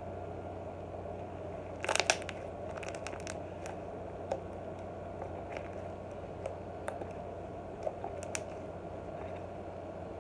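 Glittery white slime being squished and stretched by hand, giving a quick cluster of sharp pops and clicks about two seconds in, then scattered single clicks. A steady low hum runs underneath.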